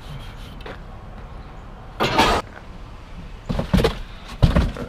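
Items being handled and shifted in a dumpster: a short scraping rustle about two seconds in, then a few more knocks and scrapes near the end.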